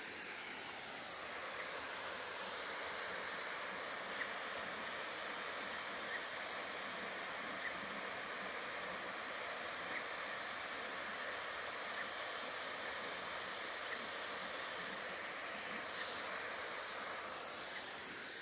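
Waterfall: a steady rush of water falling into a pool, growing slightly louder about a second in. A faint short high chirp repeats roughly every two seconds.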